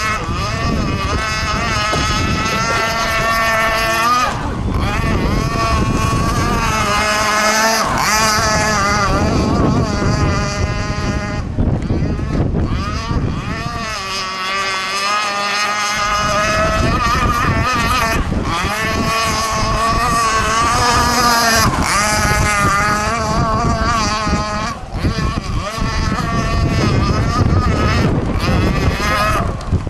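Radio-controlled gas hydroplane's two-stroke engine running at high revs as the boat speeds over the water, its pitch wavering up and down with throttle and passes. The sound eases briefly about halfway through, then picks up again.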